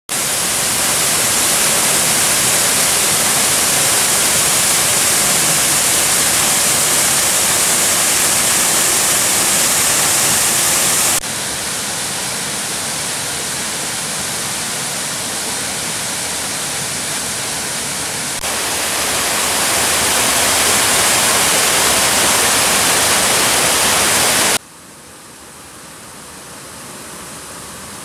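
Waterfall: a steady rush of water falling and splashing over rock. The level jumps abruptly about 11, 18 and 24 seconds in, and is much quieter for the last few seconds.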